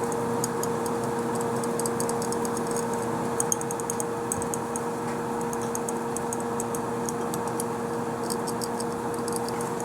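Many small, faint clicks in irregular clusters over a steady hum.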